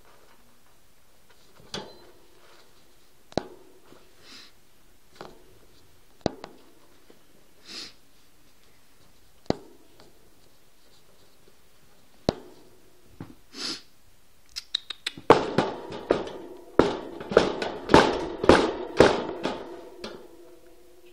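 A few sharp separate clicks, then about fifteen seconds in a fast run of loud knocks and rattles with a hollow ring, lasting some five seconds before stopping.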